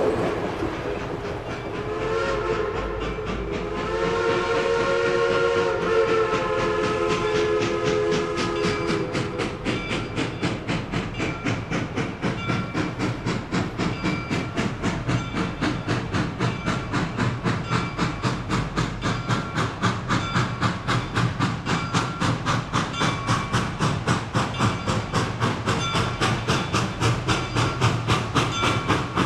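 Steam locomotive chime whistle sounding a short blast and then a longer one, several notes at once. Then the locomotive's exhaust chuffs in a fast, even beat.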